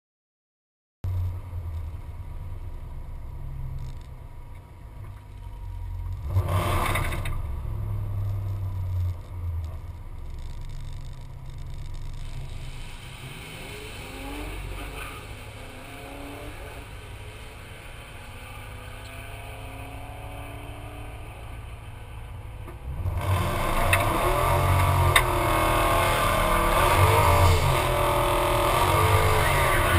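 Turbocharged 2011 Mustang GT's 5.0 V8 idling roughly as it waits to stage, with a brief surge about six seconds in. Near the end it revs hard and holds high revs in a burnout, the drag radials spinning.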